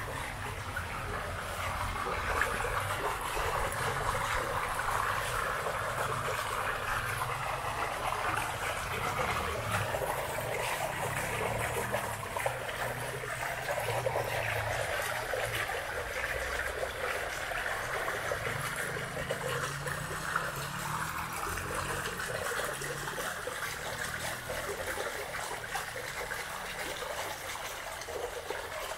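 Water steadily trickling and splashing into a small plunge pool, a continuous running-water sound.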